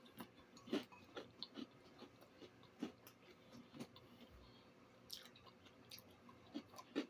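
A person chewing a mouthful of spinach salad: a run of faint, irregular soft crunches and wet clicks.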